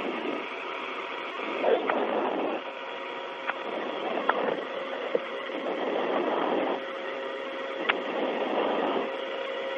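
Space-to-ground radio downlink with no one talking: a steady static hiss with a faint steady tone under it, surges of noise every second or two, and a few sharp clicks.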